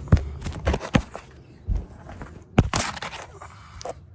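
A run of sharp knocks, clicks and scrapes, about seven in all, from hands and parts being worked while an oxygen sensor is threaded in finger tight.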